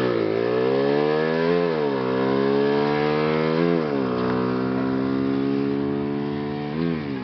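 Bajaj Pulsar 220 DTSi single-cylinder engine, fitted with a K&N R1100 air filter, being revved. The revs rise and fall twice, then hold steady, with one short blip near the end.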